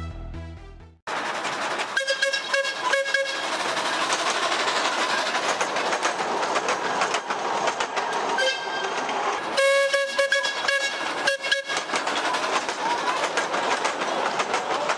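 Music fading out in the first second, then the 18-inch gauge steam locomotive Bub's train running past, wheels rolling on the rails. Its whistle is blown in short toots, a pair about two to three seconds in and more around eight to eleven seconds in.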